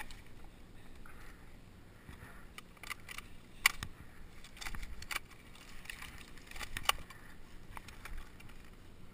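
Scattered short, sharp clicks and knocks over light rustling and wind noise. The loudest click comes a little under four seconds in and another near the seven-second mark.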